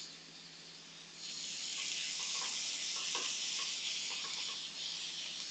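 Lamb tenderloins sizzling in hot oil in a sauté pan as more pieces are laid in. The sizzle swells about a second in.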